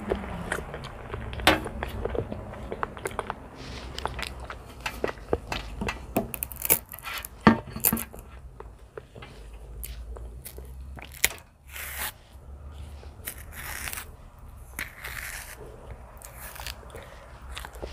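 A banana being pulled from the bunch and its peel torn back in strips, with close-miked chewing of soft banana and many small sharp clicks.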